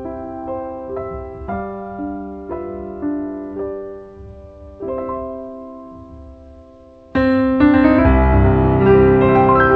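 Background piano music: single notes and soft chords that fade, then about seven seconds in it suddenly gets much louder and fuller.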